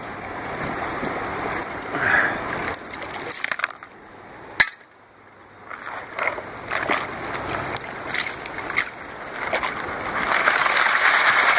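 Water sloshing and gravel rattling in a plastic gold pan being worked in a creek, with small clicks of stones and one sharp knock about halfway through.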